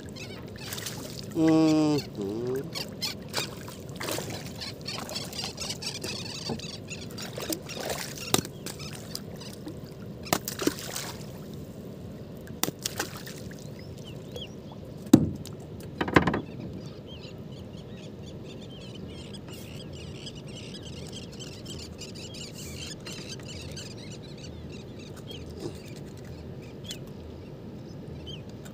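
Water lapping and sloshing against the hull of a small wooden boat, with scattered sharp knocks and clicks from the boat and the fishing line being handled. A brief pitched call sounds about two seconds in.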